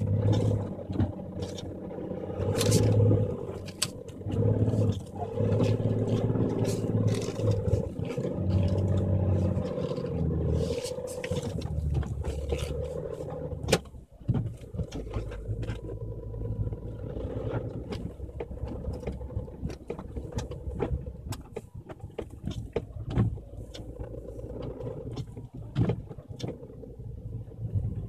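BMW X5 xDrive35d's inline-six diesel pulling the SUV uphill through deep snow, recorded from inside the cabin. For the first dozen seconds the engine note rises and falls in surges. A sharp knock comes about halfway through, and after it the engine runs lower and steadier, with scattered crunches and thuds of snow against the car.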